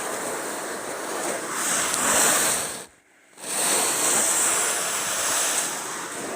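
Wind buffeting the microphone as a steady rushing noise that swells and fades, cutting out almost completely for about half a second around three seconds in.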